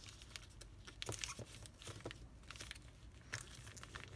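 Origami paper softly rustling and crinkling in small scattered clicks as it is folded and creased by hand.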